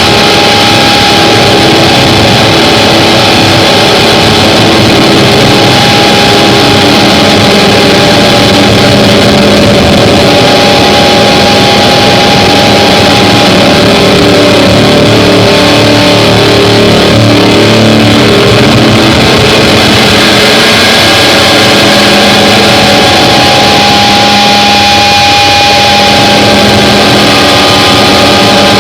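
Harsh noise drone: a dense, heavily distorted wall of noise at full level, with a steady high drone tone and lower pitched layers that shift and waver underneath.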